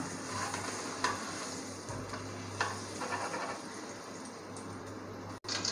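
Butter sizzling as it melts in a hot metal pot, pushed around with a plastic spoon, with a couple of light clicks of the spoon against the pot.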